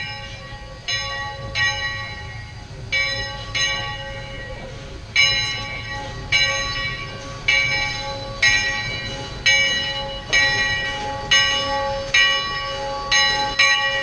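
Steam locomotive's bell ringing steadily, about one strike a second, as the locomotive approaches. The strikes grow louder about five seconds in, over a low rumble of the train.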